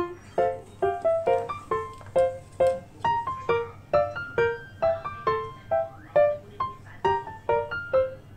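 Background music: a light melody of single keyboard notes, about two to three a second.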